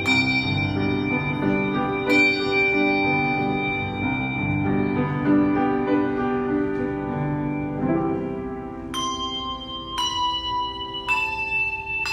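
Bells played as a tune: single notes struck and left ringing, a few of them about a second apart near the end, with lower notes sounding underneath.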